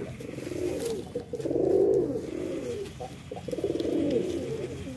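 Male domestic pigeon cooing three times, each coo about a second long, swelling and falling. The bird is in breeding condition.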